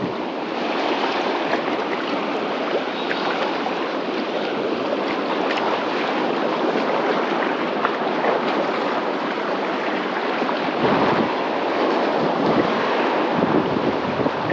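Small waves washing and lapping over a shallow rocky shore as a steady noisy wash, with a few small splashes. Wind buffets the microphone in low gusts near the end.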